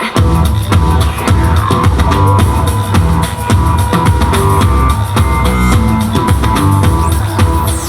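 Loud pop-rock music with a driving drum kit and bass, a steady beat.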